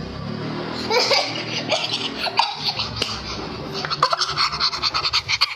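A girl laughing in quick, repeated bursts of giggles, breaking up while trying to act out a prim, restrained 'jaim' cough.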